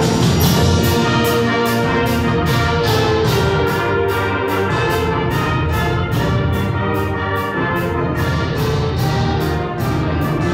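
Symphonic concert band playing a brass-heavy piece, full ensemble with a steady percussion beat. The deep bass comes in right at the start.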